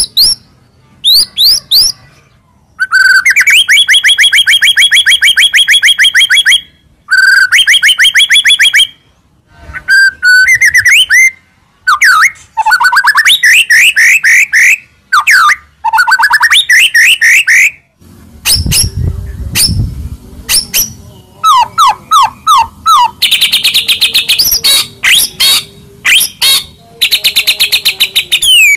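White-rumped shama (murai batu) singing loudly: a varied song of long rapid trills of repeated notes, sharp rising whistles and fast chattering phrases, with short pauses between them. It is the varied, mimicry-filled ('isian') song used as a training recording for other shamas.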